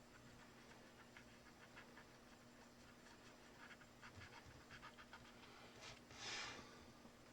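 Faint, irregular scratching and light ticking of a small tool worked against a phone's camera frame, cleaning off old adhesive and bits of glass. A short hiss about six seconds in.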